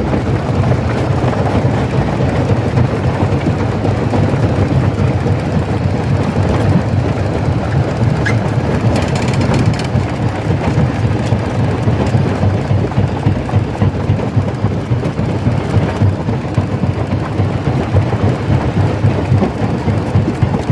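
Stone crusher machine crushing rocks: a loud, steady low rumble with the grinding crackle of breaking stone, a little brighter for a second around the middle.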